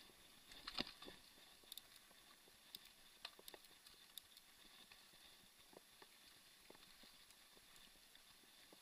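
Faint, scattered clicks and knocks from a mountain bike and its camera jolting over a rough dirt trail, over a low hiss; the loudest knock comes about a second in.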